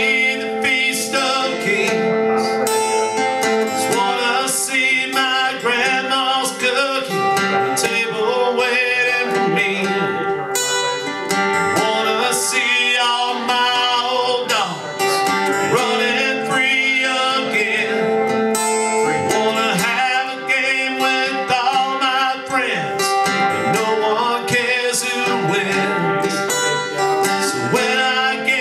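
A man singing while playing guitar.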